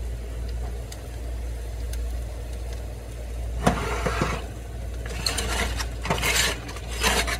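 Steady low hum, then from about three and a half seconds in a knock and several short scraping, crinkling bursts as a foil-lined baking pan of broiled fish is slid out along the metal oven rack.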